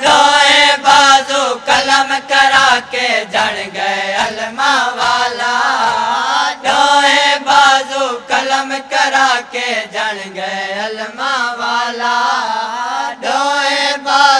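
Men chanting a Punjabi noha together through microphones, with a steady beat of hand slaps on chests from the mourners doing matam.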